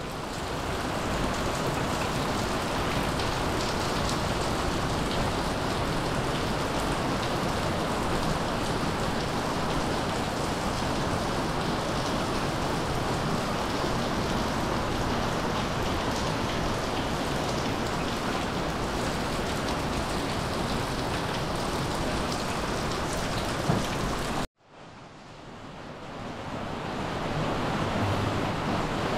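Steady rain falling on the forest and wooden decking, a dense, even hiss. Near the end it cuts off abruptly, then fades back in as the same steady rain.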